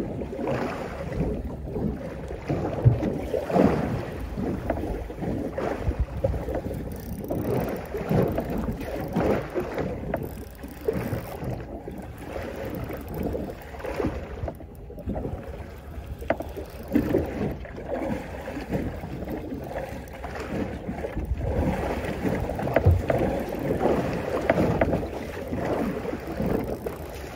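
Choppy water slapping irregularly against the hull of a small drifting boat, with wind buffeting the microphone.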